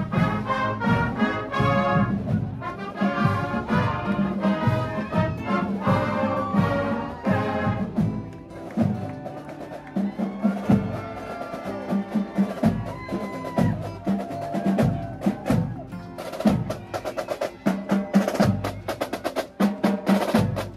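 A marching band passing close by: the brass section playing a tune, then about 16 seconds in the drumline's snare and tenor drums take over with a fast cadence.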